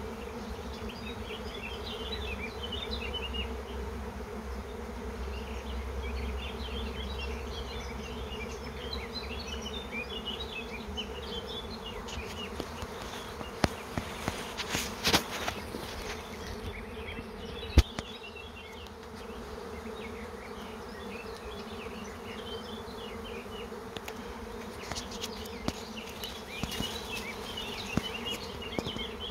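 A swarming honeybee colony in flight: thousands of bees buzzing together in a steady hum as the swarm pours out of its hive. A few sharp clicks sound around the middle.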